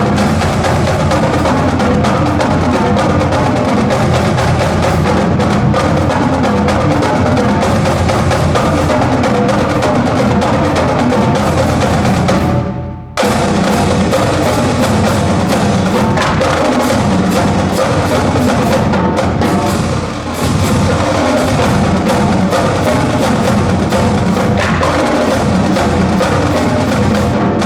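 Marching band drumline playing a traditional cadence: snare, tenor and bass drums beating a loud, driving marching pattern, with a brief break about halfway through.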